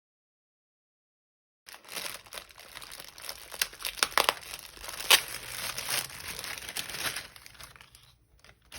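Packaging being handled and crinkled, a dense crackling with sharp snaps, starting about a second and a half in and stopping shortly before the end.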